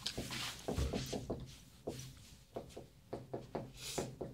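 Marker writing on a whiteboard: a quick run of short taps and scratchy strokes as letters are written.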